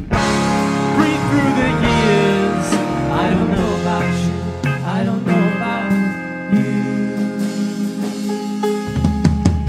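Live rock band playing: electric guitars, bass, drums and piano together.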